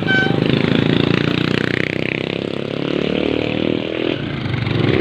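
A motor vehicle's engine running loudly close by, rising and falling in pitch as it revs and passes in street traffic, with the tail of a horn toot right at the start.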